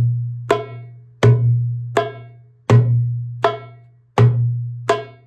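Darbuka playing a slow, even bass–high exercise, about one stroke every 0.7 s. Deep bass strokes (dum) with a long, ringing low tone alternate with sharp, bright high strokes (tek).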